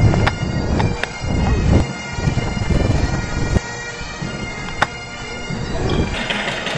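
Bagpipe music with its steady drones held throughout, over uneven thudding footsteps and two sharp clicks, about a second in and near the end.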